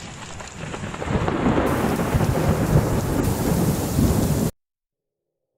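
Storm noise: a heavy rumble under a steady rain-like hiss, building up about a second in, then cutting off suddenly, followed by silence.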